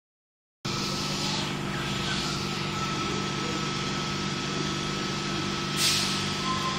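Sydney Trains Tangara electric train running at the platform: a steady electric hum with a thin, constant high whine, starting about half a second in. A short hiss of air comes near the end.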